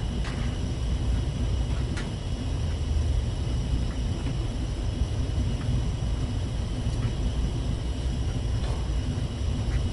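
Steady low rumble and hum of a ship's machinery heard inside a cabin, with a few faint clicks of plastic clamp parts being handled.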